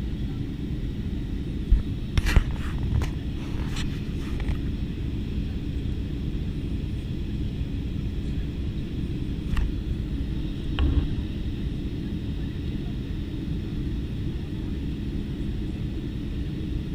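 Boeing 757-200 heard from inside the cabin after takeoff: a steady low rumble of engines and airflow. A few short clicks or knocks come about two to four seconds in, and again near ten and eleven seconds.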